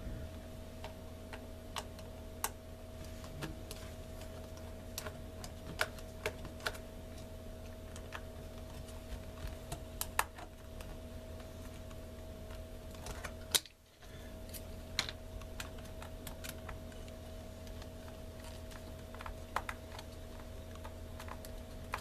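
Small Phillips screwdriver working the tiny screws of a MacBook's L-shaped bracket in the battery bay: scattered light clicks and ticks of metal on the screws and the plastic case, over a steady low hum.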